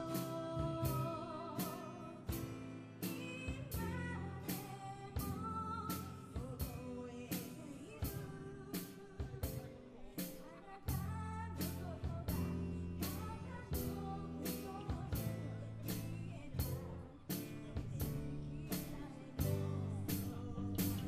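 A band playing a song live: singing over guitar, bass and drum kit, with drum hits about twice a second keeping a steady beat.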